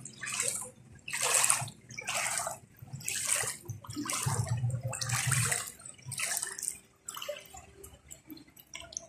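Footsteps wading through shallow floodwater, a sloshing splash with each step at about one a second.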